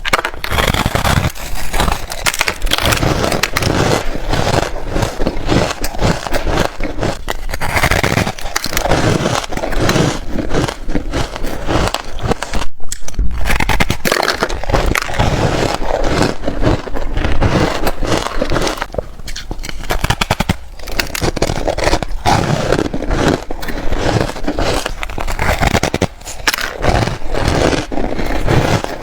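Reshaped ice being bitten and chewed close to the microphone: a dense run of irregular crunching and crackling, with a brief pause about halfway through.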